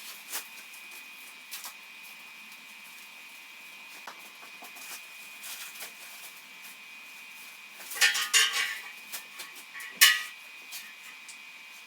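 Steel parts and linear rails being handled on a steel gantry, clinking and knocking: scattered light clicks, a cluster of clinks about eight seconds in and a single sharp metal strike about two seconds later, over a faint steady high whine.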